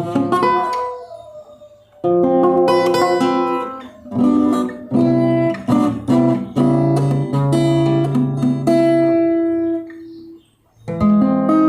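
Acoustic guitar playing, chords strummed and plucked and left to ring, with a short pause near the end before a new chord is struck.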